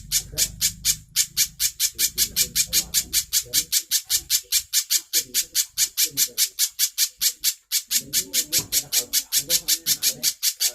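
Spiderhunter (pijantung) calling non-stop: a rapid, even series of sharp high chips, about five or six a second.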